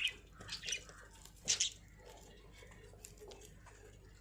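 Budgerigars chirping: a few short high chirps, the loudest about a second and a half in, then softer, sparser chirps.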